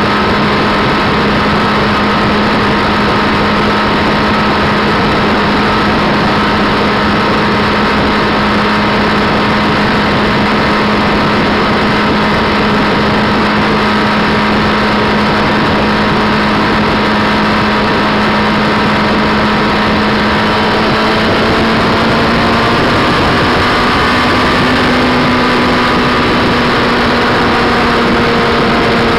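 Motorcycle engine running steadily at highway cruising speed, a constant hum under a rush of wind and road noise. The engine note rises slightly a little over twenty seconds in.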